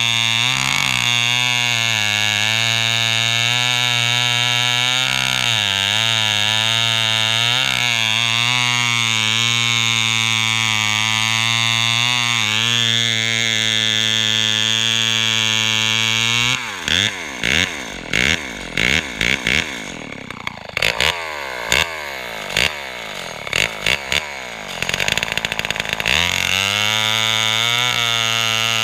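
Lombard AL42 two-stroke chainsaw running at steady high revs. About halfway through, the throttle is blipped again and again, the pitch rising and falling sharply, before it settles back to a steady run near the end.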